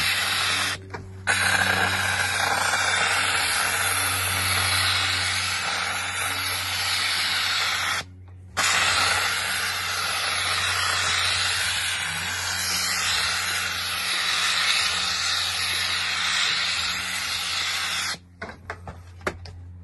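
Household steam cleaner blowing steam through a cloth-wrapped nozzle as it is wiped over caravan canvas: a loud steady hiss over a low hum. The steam cuts off briefly about a second in and again around eight seconds in, and stops near the end.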